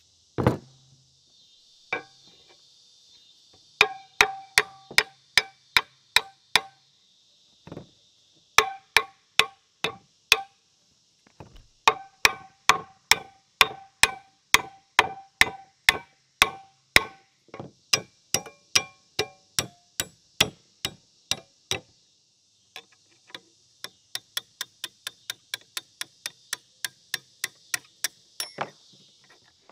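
A hammer striking the forged-steel parts of an old post vise. Runs of sharp, ringing metal blows come about two a second with short pauses between them, and lighter, quicker taps follow near the end.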